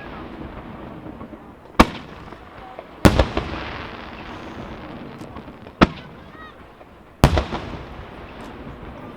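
Aerial firework shells bursting in a display: four sharp bangs at irregular intervals, two of them trailing off over about a second, over a steady background hum of the crowd and distant firing.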